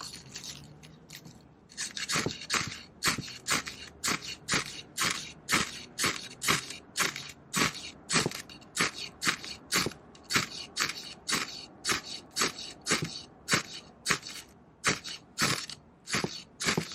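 Knife blade shaving curls off a stick of wood, carving a feather stick: short, even scraping strokes about two a second, starting about two seconds in.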